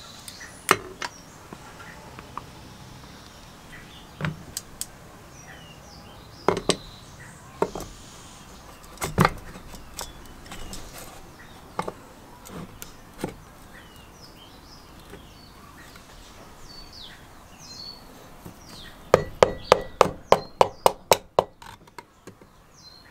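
Metal parts being handled as a piston in a ring compressor is set on a small engine's cylinder: scattered sharp clicks and knocks, then near the end a quick run of about a dozen sharp taps at roughly six a second as the piston is tapped down into the bore. Birds chirp faintly in the background.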